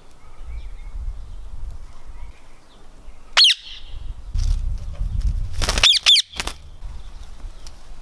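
Indian ringneck parakeet giving three short, shrill squawks: one about three and a half seconds in, then two in quick succession a couple of seconds later. A low rumble runs on the microphone underneath.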